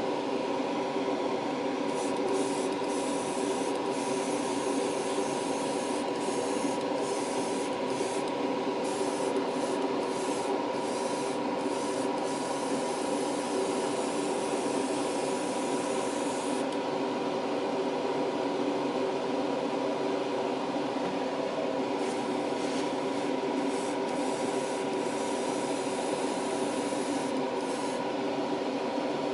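Airbrush hissing as it sprays paint onto a plastic model, broken by several brief pauses, over a steady machine hum.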